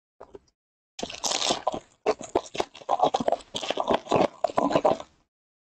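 Foil wrapper of a 2023 Bowman Platinum baseball card pack crinkling and tearing as it is ripped open by hand: a dense crackle that starts about a second in and lasts about four seconds.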